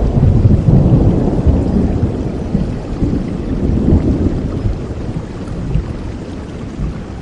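Rolling thunder rumbling and slowly dying away over steady rain.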